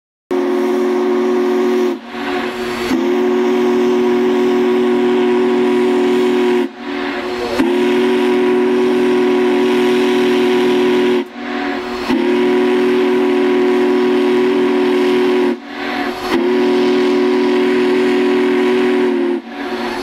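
Union Pacific Big Boy No. 4014's steam chime whistle sounding a chord of several steady notes: one short blast, then four long blasts of about three and a half seconds each, with steam hissing in the gaps.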